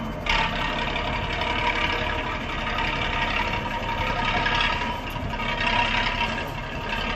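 1982 MAN 22.190 truck's naturally aspirated diesel engine running steadily as the truck moves slowly off.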